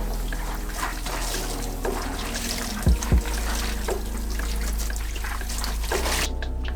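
Running water splashing and trickling, which stops suddenly near the end, over background music with a steady beat.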